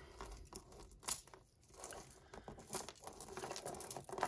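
Tangled costume-jewellery chains and glass beads being handled, giving irregular small clicks and clinks, with a sharper click about a second in.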